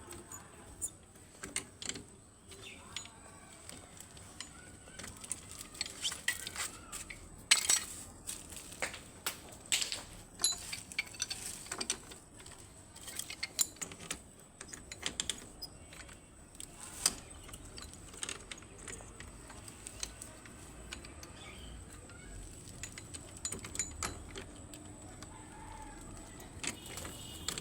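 Irregular small clinks and knocks of plumbing tools and pipe fittings being handled and set down, several a second at times, the sharpest knock about seven seconds in. A faint high steady whine runs underneath.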